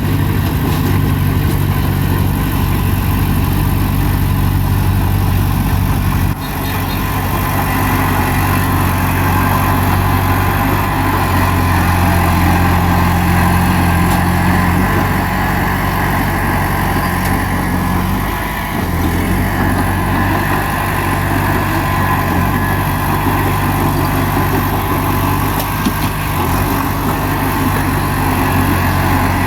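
Bulldozer's diesel engine running steadily under load, with a brief drop in level about six seconds in and a short dip in engine speed a little past the middle.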